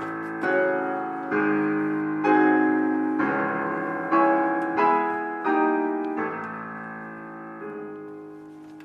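Slow piano music: chords struck about once a second and left to ring, the last one fading away over the final couple of seconds.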